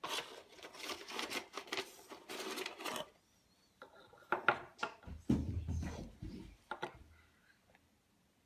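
Wooden puzzle blocks of a Smart Games Day and Night set clacking and scraping as they are handled and slid onto the wooden pegs of their stand: a dense rattle for about three seconds, then a few separate knocks and some dull thumps.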